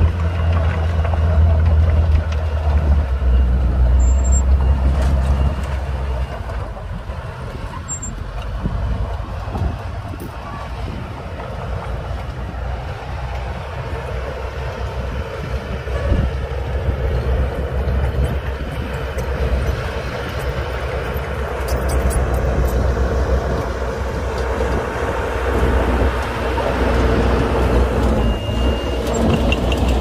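Diesel engine of a Komatsu mini bulldozer running under load as it pushes sand, with a dump truck's engine running alongside. The low engine drone is heaviest for the first several seconds, and a few short high beeps sound near the end.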